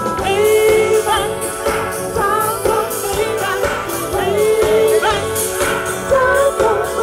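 A live band playing a song with a singer, the sung line gliding over a steady held note in the accompaniment.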